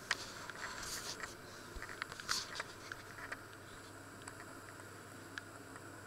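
Faint handling noise: a few light clicks and knocks over the first three seconds or so, then quiet room tone with a low, steady hum.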